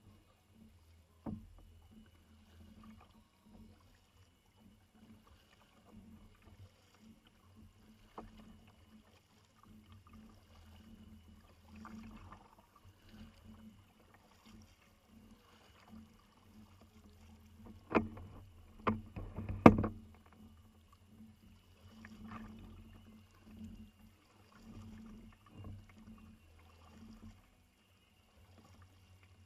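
Kayak on the move, with soft water and hull noises and a few sharp knocks against the hull; the loudest are three quick knocks about two-thirds of the way in.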